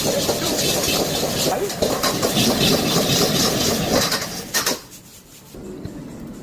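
Fried rice being stir-fried in a pan over a strong flame: a loud, steady sizzle and rush of noise that drops away abruptly after a knock about four and a half seconds in.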